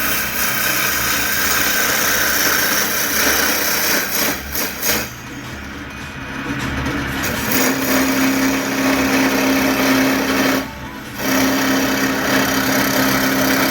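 Wood lathe running while wood is worked on the spinning stock, a dense scraping hiss. A steady hum sets in about halfway through, and the sound drops away briefly twice.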